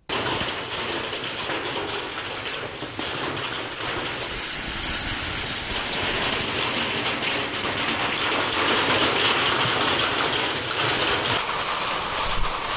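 Hailstorm with heavy rain driven by strong wind: a dense, steady rush of falling hail and rain.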